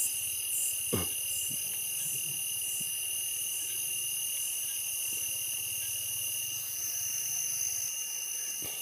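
Night chorus of crickets and other insects in tropical forest: a steady, high-pitched trilling in several even tones, with a shriller call pulsing about once a second that fades out over the first few seconds. A single soft knock comes about a second in.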